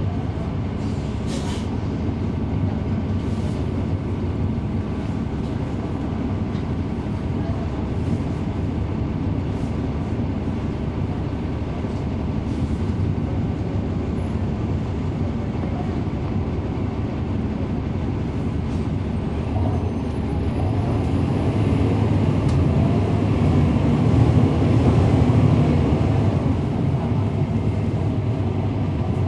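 On board a NABI 40-foot transit bus, its rear-mounted Cummins ISL9 diesel engine runs with a steady low rumble, heard from the back seats, with the radiator fan running. The engine grows louder about twenty seconds in and eases off near the end. A few light rattles or clicks come early on.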